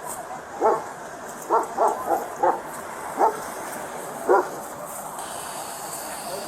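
A dog barking: a run of short, sharp barks, about seven in the first four and a half seconds, then a pause.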